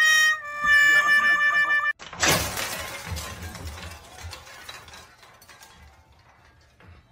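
A black dog howling: one long drawn-out note, falling slightly in pitch, with a brief break, cut off sharply about two seconds in. A sudden loud crash-like noise follows and fades away over about three seconds.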